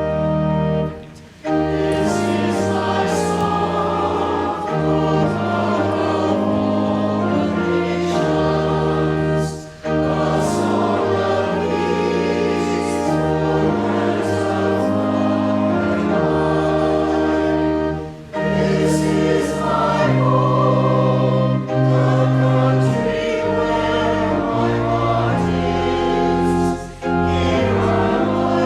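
Church choir singing a hymn or anthem with organ accompaniment, in long held phrases with brief pauses between them.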